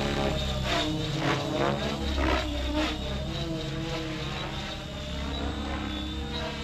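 Align T-Rex 700X electric RC helicopter flying with its rotor head spinning at about 2000 rpm: a steady rotor and motor whine whose pitch bends up and down as it manoeuvres. It gives a series of rotor swishes in the first few seconds, then fades a little before growing louder again near the end.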